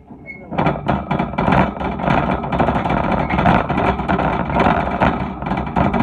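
Shopping cart being pushed across the store floor, its wheels rolling and the wire basket rattling constantly, heard close up from inside the cart. The rattle starts about half a second in and keeps on loudly.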